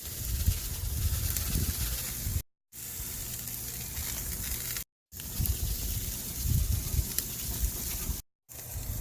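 Steak sizzling on an outdoor grill as a steady hiss, with wind rumbling on the microphone; the sound drops out for a moment three times.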